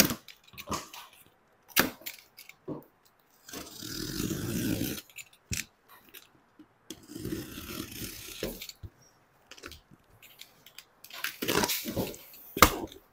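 Box cutter slitting the packing tape on a cardboard carton: two longer scraping stretches, with cardboard knocks and rustles in between and more near the end.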